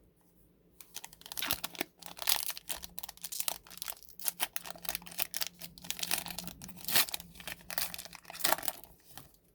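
Crinkling and tearing of a trading-card pack wrapper being opened by hand: a busy run of irregular crackles that dies away near the end.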